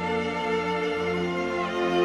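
Background music: slow, sustained bowed strings, violin and cello.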